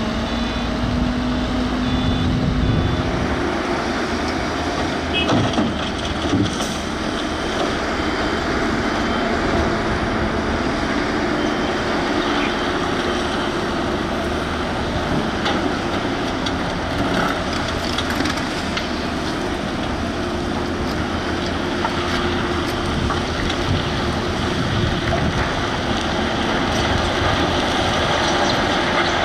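Volvo EC210B excavator's diesel engine running steadily while it works, with a few clanks about five to seven seconds in. Reversing beeps sound during the first few seconds.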